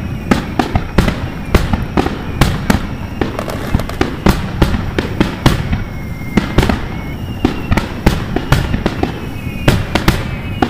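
Aerial fireworks shells bursting in rapid, irregular succession: many sharp bangs, several a second, over a continuous low rumble of distant explosions. Faint whistle tones come in during the second half.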